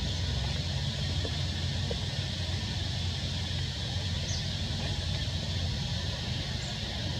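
Steady outdoor background noise: a low rumble under an even high hiss, with a few faint high chirps.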